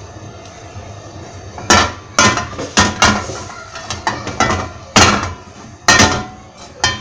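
Metal frying pan clanking on a gas stove's grate as it is tilted about to spread the oil: a run of irregular sharp knocks starting nearly two seconds in.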